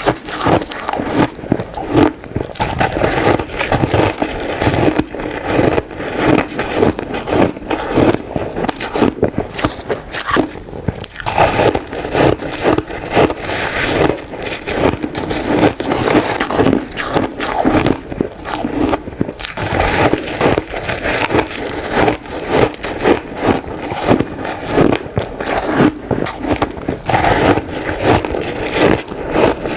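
Close-miked biting and chewing of hand-compressed balls of red shaved ice: a dense run of crisp, rapid crunches.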